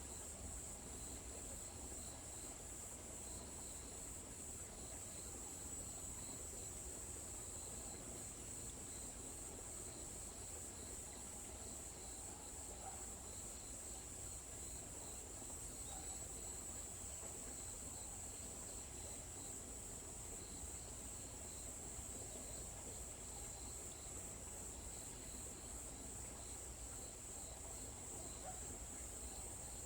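Insects chirring steadily in a high, even buzz, with a second, lower chirp repeating about twice a second, over a faint low rumble of forest ambience.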